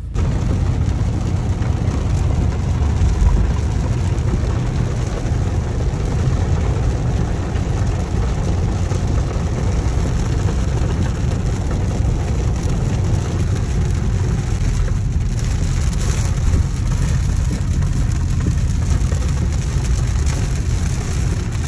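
Steady noise inside a car's cabin while driving in heavy rain on a wet road: engine, tyres on standing water and rain on the body and windscreen.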